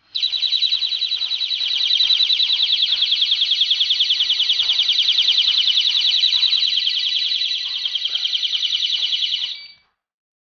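Electronic siren of a solar wireless PIR motion alarm sounding, set off by its motion sensor. It gives a loud, high-pitched warbling tone pulsing about eight times a second, which starts abruptly and cuts off after about nine and a half seconds.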